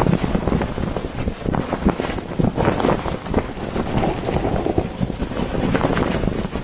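Strong gusting wind buffeting the microphone: a loud, rushing noise that surges and drops in quick gusts.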